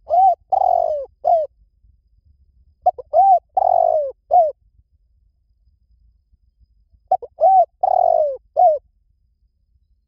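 Spotted dove cooing: three phrases a few seconds apart. Each phrase is a short run of four or five coos, one of them drawn out longer.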